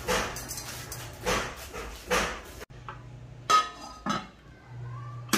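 A few short, sharp barks in the first half. Then the glass lid of an electric rice cooker knocks into place with a brief ringing note, and a click comes near the end.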